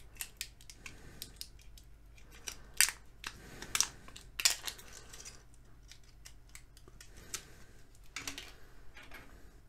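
Plastic shrink wrap on a lithium-ion battery pack being cut and pulled apart with a small blade: a run of sharp crackles and snips, loudest about three to five seconds in.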